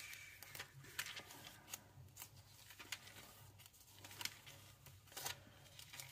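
Thin pages of a small Bible being leafed through by hand: faint, irregular crisp flicks and rustles of paper.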